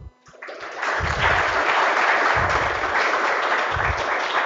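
Audience applauding. The applause starts about half a second in and then holds steady.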